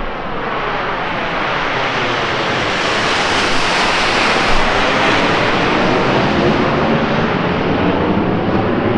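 A formation of Snowbirds CT-114 Tutor jets flying past low: rushing jet noise that swells over the first few seconds, is brightest about midway as the jets pass, then stays loud as they move off.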